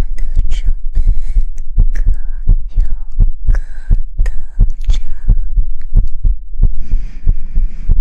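Close-miked ASMR trigger sounds: rapid, irregular soft thumps and taps on the microphone over a deep rumble, with brief hissing brushes or rubs about a second in, mid-way and near the end.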